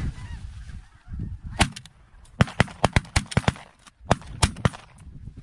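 A rapid volley of about ten shotgun shots from several hunters firing together at ducks over decoys, starting about a second and a half in, with a short break before the last few.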